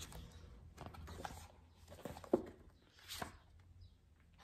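Pages of a book being leafed through by hand: several short paper rustles and flutters, with one sharper snap of a page a little past two seconds in.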